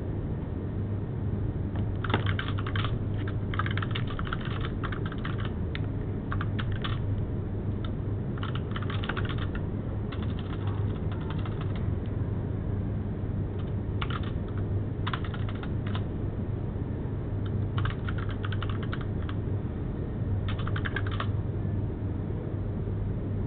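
Typing on a computer keyboard in several bursts of quick key clicks with short pauses between them, over a steady low hum.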